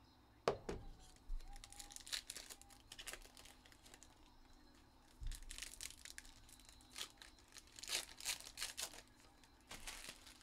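Foil trading-card pack wrappers being torn open and crinkled by hand, in several crackly bursts, with one sharp knock about half a second in.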